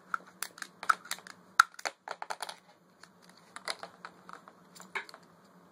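Hand-held pipe cutter clicking and snapping as its blade is squeezed through white plastic PEX tubing: a quick run of sharp clicks, a short pause, then another run.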